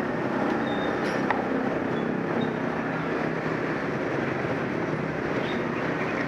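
Steady motor-vehicle engine noise with a broad hiss over it, and a sharp click a little over a second in.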